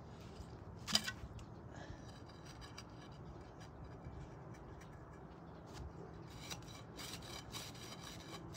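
Metal tunnel probe being pushed and worked down into soil and turf: gritty scraping and rubbing, with a sharp knock about a second in and a quick run of scraping strokes near the end.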